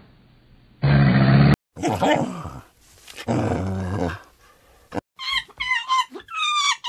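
A crocodile's short deep growl, then a dog's two drawn-out growling barks, then a run of quick gibbon hoots that swoop up and down in pitch.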